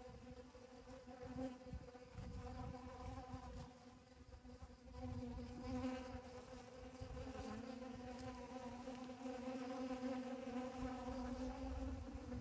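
Honeybees buzzing as they fly in and around a dragon fruit flower, a steady wingbeat hum that grows louder about halfway through.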